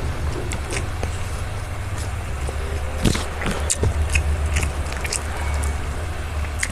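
Close-miked eating: chewing, lip smacks and small mouth clicks at irregular intervals, over a steady low hum.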